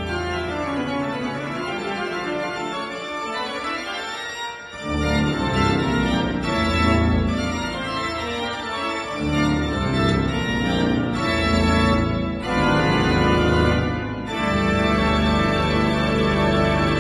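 Pipe organ played with hands and pedals: sustained full chords. The deep bass thins out over the first few seconds and comes back in strongly about five seconds in.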